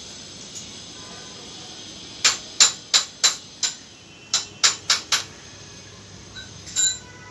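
Sharp knocks: about nine in two quick runs over three seconds, then one more a second and a half later.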